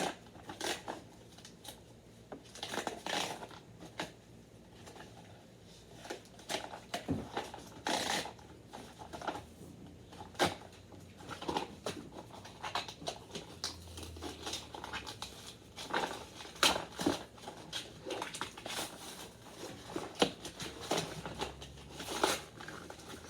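An action figure's blister-and-cardboard packaging being cut and pulled open by hand: irregular snips, plastic crinkling, scrapes and sharp clicks.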